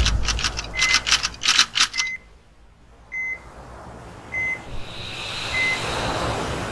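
Intro sound effects: a burst of rapid typewriter-like clicking, short electronic beeps of one pitch repeating about once a second, and a rising noise swell that builds near the end.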